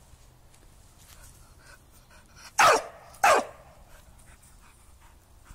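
A young Entlebucher Mountain Dog barks twice, two short barks about two-thirds of a second apart, each dropping in pitch.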